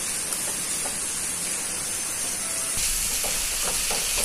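Chopped onions and tomatoes sizzling in oil in a frying pan while a wooden spatula stirs them. The sizzle grows a little louder about three seconds in, and a few light knocks of the spatula on the pan follow.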